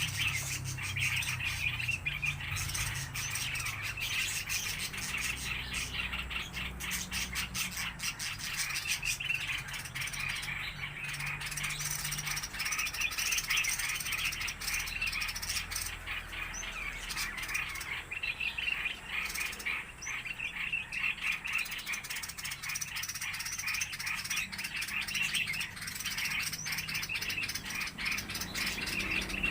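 A flock of small aviary birds chirping and chattering continuously, a dense overlapping mix of rapid chirps.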